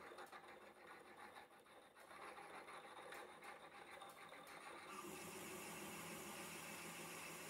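Faint sound of a small benchtop milling machine running, its end mill cutting into a block of free-cutting steel. The cutting noise becomes steadier and fuller about five seconds in.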